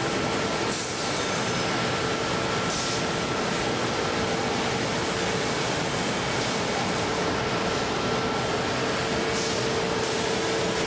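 Busellato JET Optima CNC machining centre running its cycle on wooden cabinet door parts: a steady spindle whine over a constant machining noise, with a few brief hissing swells.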